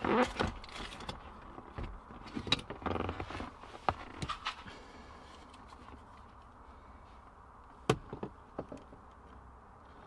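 Handling noises of a hand tool and wiring: rustling, light clicks and clatter as a crimping tool is picked up and a blue crimp connector on a wire is worked, mostly in the first few seconds. A single sharp click comes about eight seconds in, followed by a few smaller ones.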